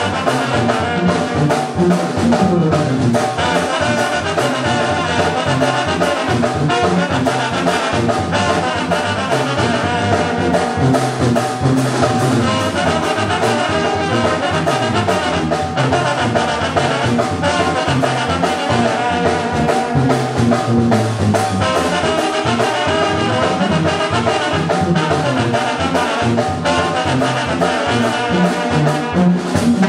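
Music with brass horns and a moving bass line, playing steadily.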